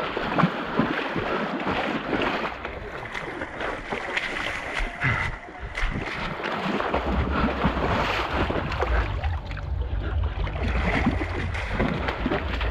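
Splashing and sloshing of legs wading through shallow muddy water, with wind buffeting the microphone. The low wind rumble grows heavier about halfway through.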